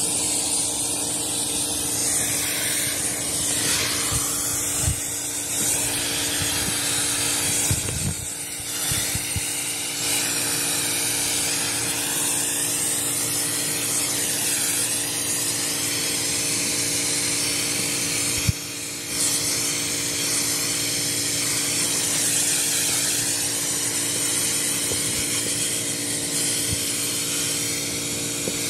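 Steady hiss of a soft-wash spray wand jetting cleaning solution onto clay barrel roof tiles, over a constant low hum; the spray breaks off briefly about two-thirds of the way through.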